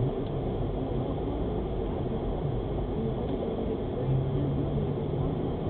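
Steady engine and road noise of a moving car, heard from inside the cabin through the dashcam's microphone. A low, steady hum joins about four seconds in.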